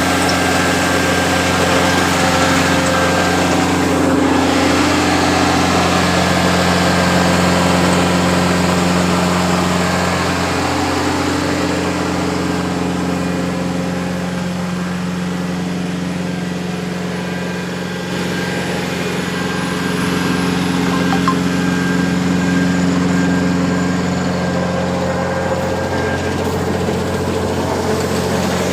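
Mini rice combine harvester's engine running steadily at a constant speed, the sound easing a little about halfway through and building back up.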